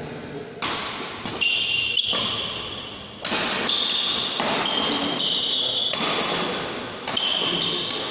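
Badminton rackets striking a shuttlecock during a fast doubles rally, about six sharp hits ringing in a large hall, with short high squeaks between them from shoes on the court floor.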